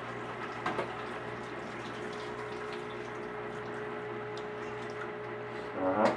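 Water running from a tap into a sink as leaves are rinsed, a steady splashing hiss. There is a light knock under a second in and a short burst of voice just before the end.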